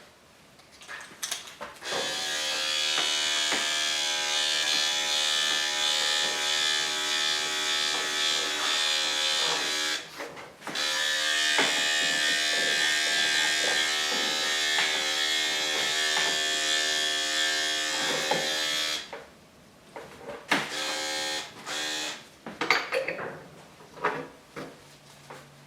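Electric dog grooming clippers fitted with a guard comb running steadily while trimming the coat. The buzz stops briefly about ten seconds in, runs again until about nineteen seconds in, and then gives way to a few light clicks and handling sounds.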